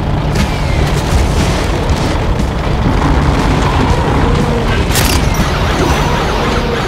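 Cartoon action sound effects: a loud, continuous low rumble of booms and vehicle engines, with a sharp burst about five seconds in as the monster truck is thrust up on a cloud of smoke.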